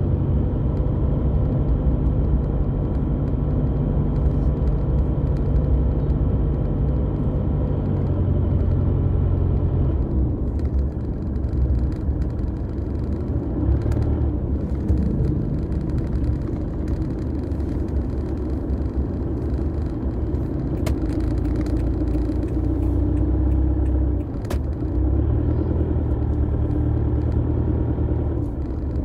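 Car engine and tyre rumble heard from inside the cabin while driving, a steady low hum whose engine tone shifts about ten seconds in. There are a couple of sharp clicks, near the middle and later on.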